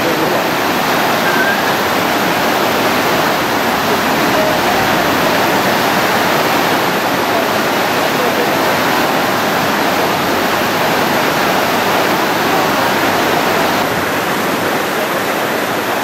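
Steady rush of fast-flowing water from the Tarsus waterfall and its river rapids, easing slightly near the end, with faint voices underneath.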